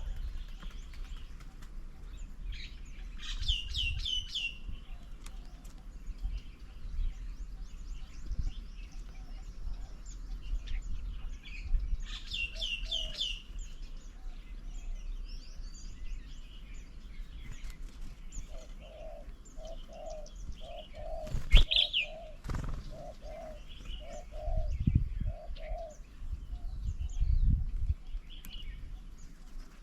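Garden birds calling: a short phrase of quick, high, falling notes given twice in the first half, then a long, even series of low hooting notes, about one and a half a second, through most of the second half. A single sharp knock sounds about two-thirds of the way through.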